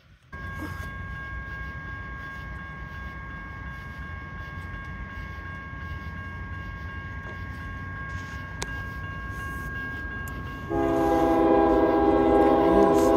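Railroad crossing warning bell starts ringing as the crossing signals activate and the gates lower. About eleven seconds in, an approaching CSX freight locomotive's horn sounds, a loud chord of several tones and the loudest thing here.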